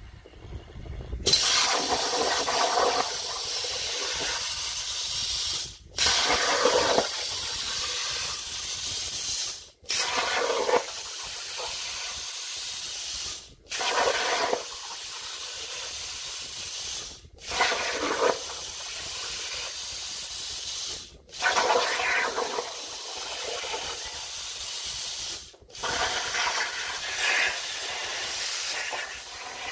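CNC plasma cutter torch cutting steel sheet: a loud, steady hiss of the arc and air jet. It stops abruptly and restarts six times, about every four seconds, each restart briefly louder.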